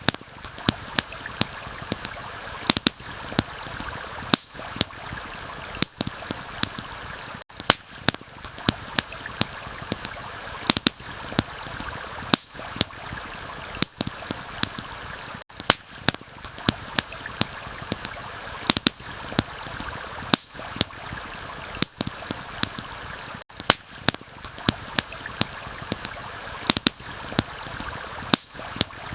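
Campfire crackling with sharp, irregular pops, a few a second, over a steady rush of running water from a stream.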